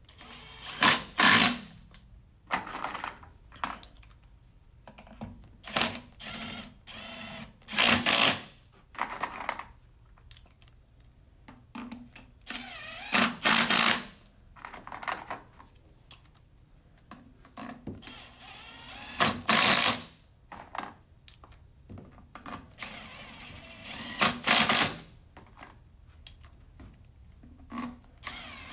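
Cordless power driver running bolts into the aluminium case cover of a Nissan RE0F09B (JF010E) CVT transmission. It runs in about a dozen short bursts of a second or so, with quiet gaps between them as each bolt is started and run down.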